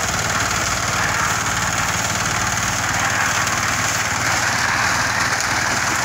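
Portable drum concrete mixer's small engine running steadily, with the drum turning as it empties wet concrete into a steel pan.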